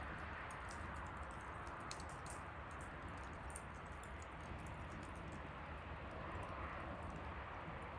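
Wood bonfire crackling: many small, irregular pops and snaps over a steady hiss and low rumble of the burning fire.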